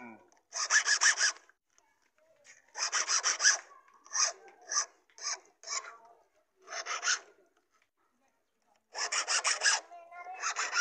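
A flat hand file rasping on metal in quick strokes: several runs of about a second, a few single strokes in between, a short pause, then another run near the end. It is the hand filing of a replacement motorcycle key.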